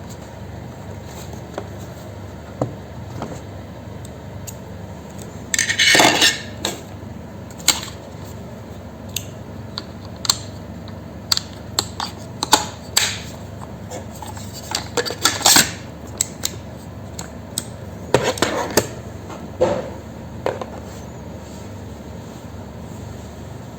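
Small hard parts of a laptop being handled: scattered clicks, taps and scrapes of plastic and metal, with a longer scrape about six seconds in and clusters around fifteen and eighteen seconds, over a steady low hum.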